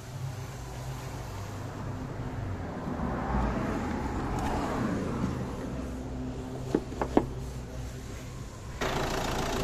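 A steady low hum with a few sharp clicks about seven seconds in. Near the end, the 2015 Ford Transit's 2.2-litre diesel engine sets in suddenly, idling.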